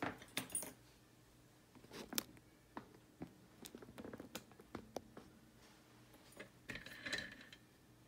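Light metallic clicks and clinks of lock-picking tools and a small lock cylinder being handled, scattered throughout, with a denser cluster of clinks near the end as the cylinder is taken out of its clamp.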